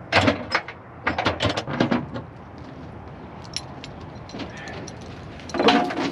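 Steel load-securement chains clanking and rattling as they are pulled from a truck's chain box, in three bursts: at the start, from about one to two seconds in, and again near the end.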